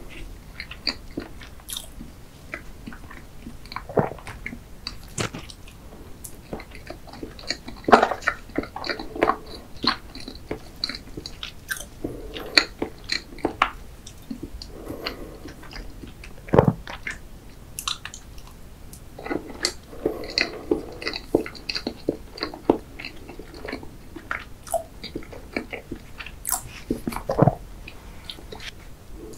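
Close-miked chewing and lip smacking of chocolate cream layer cake, with frequent sharp clicks and a few louder knocks as a metal fork cuts into the cake and its board.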